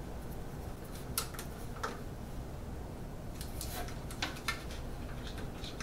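Faint, scattered clicks and taps of a small hand screwdriver and fingers working the plastic extruder lever handle on a 3D printer toolhead, most of them in a cluster past the middle, over a low steady hum.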